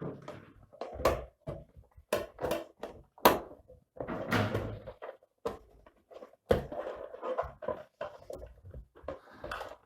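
Irregular knocks, clicks and clatter of a UPS casing being handled and fitted back together, with the loudest knocks about one, three and six and a half seconds in.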